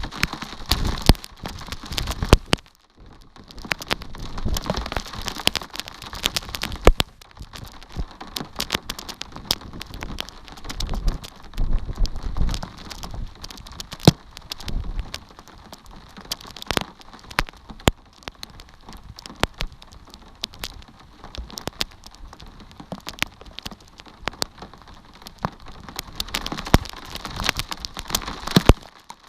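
Rain falling, with many irregular sharp ticks of drops striking close to the microphone over a steady patter.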